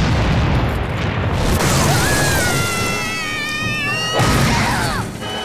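Cartoon explosion sound effect: a long, loud rumbling boom for the first second and a half. It is followed by whistle-like tones that rise slowly, and a second sudden burst with falling tones about four seconds in.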